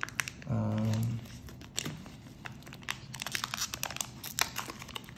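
A foil trading-card pack is torn open and its clear plastic inner wrapping crinkled in the hands: a quick, uneven run of crackles and rustles.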